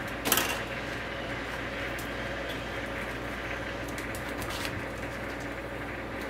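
Clear plastic overwrap film rustling and crinkling as a DVD case is folded into it by hand at an overwrapping machine. A sharp crackle about a third of a second in is the loudest sound, followed by smaller rustles and clicks, over a steady low hum.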